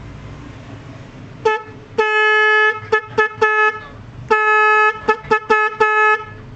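Electric snail-type car horn set sounded in a test. One short toot is followed by a long blast, a run of quick toots, a second long blast, and more quick toots, all at one steady pitch.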